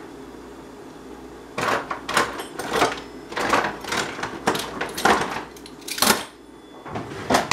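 Kitchen utensils clattering as a drawer is rummaged through for a wooden spoon: a string of irregular clinks and knocks starting about one and a half seconds in, with two louder knocks near the end.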